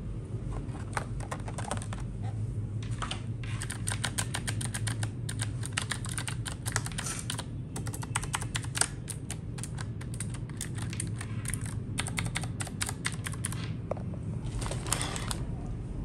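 Qwerkywriter typewriter-style mechanical keyboard being typed on: runs of quick key clicks on its round keycaps, with short pauses between bursts. A brief rustle of plastic comes near the end.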